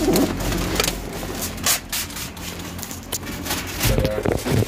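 Clear plastic window-tint film rustling and crackling as it is handled, with scattered sharp clicks.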